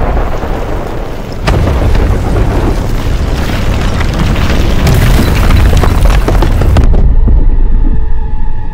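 Cinematic sound effect of a huge explosion: a deep, loud rumbling blast that swells again about a second and a half in. Near the end the high roar falls away, leaving a low rumble under faint music.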